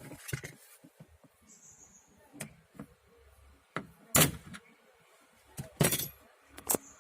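Sharp clicks and knocks from work on a Maruti Suzuki Alto's inner door trim panel and its retaining clips. The knocks are scattered, with the loudest about four seconds in and again just before six seconds.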